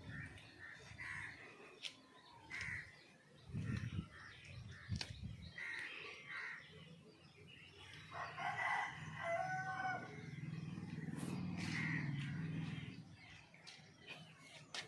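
A rooster crowing once, about eight seconds in, with other birds calling repeatedly around it. There are a couple of dull thumps near the four- and five-second marks.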